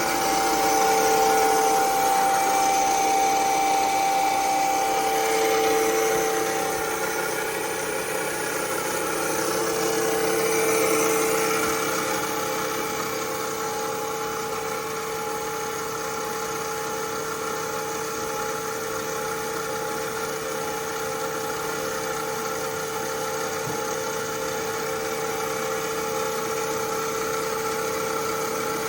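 Parker Majestic B-53 internal grinder running under power, a steady machine whine and hum. It swells in level a few times in the first dozen seconds, then runs evenly.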